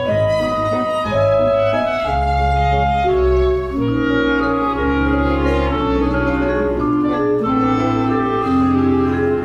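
Instrumental soundtrack music: a melody of held notes over sustained bass notes.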